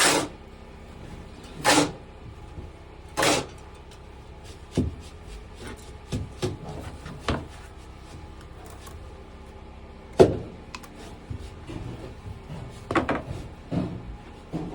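Sharp knocks and clanks at irregular intervals, a few louder ones with a short ring after them, as steel rebar is handled and pieces strike each other.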